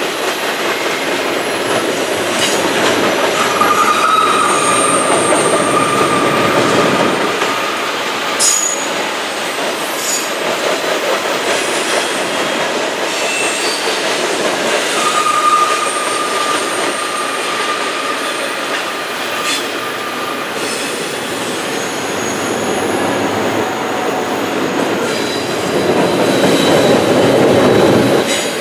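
Double-stack intermodal freight cars rolling across a bridge: a steady rumble of steel wheels on rail with scattered clicks at the rail joints. A thin wheel squeal rises above it twice, about four seconds in and again around fifteen seconds in.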